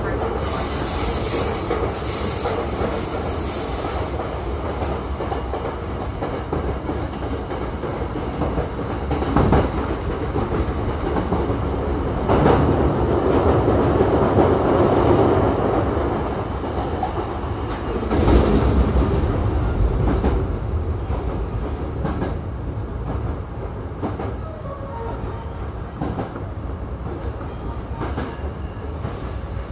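Hankyu electric train running at speed, heard from just behind the driver's cab: a steady rumble with wheels clacking over rail joints. A high wheel squeal sounds in the first few seconds, and the noise swells in several louder stretches.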